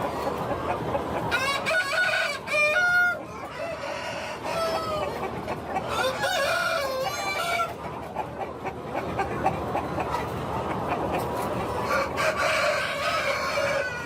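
A flock of Dong Tao chickens clucking, with two long rooster crows, one about a second and a half in and another around six seconds in.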